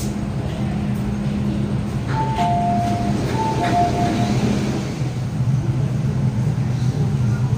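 A two-note electronic door chime, a higher tone followed by a lower one, sounds twice over the steady low hum of an MTR M-train standing at the platform.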